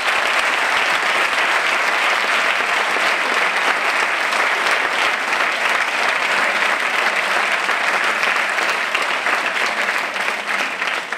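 Audience applause, a dense steady clapping that begins to die away near the end.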